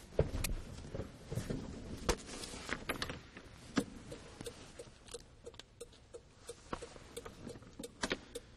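Scattered light clicks and knocks at uneven intervals from a person getting onto a compact tractor and working its controls to switch on the turn signal.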